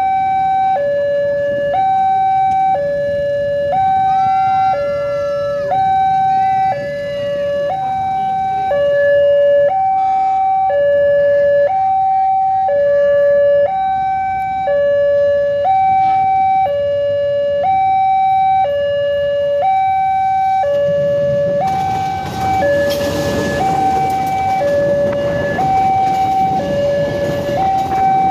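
Railway level-crossing warning alarm sounding a steady alternating two-tone signal, high then low, about one full cycle every one and a half seconds, to warn of an approaching train. About three-quarters of the way in, the rumble of a passenger train rises under it as the train reaches and passes the crossing.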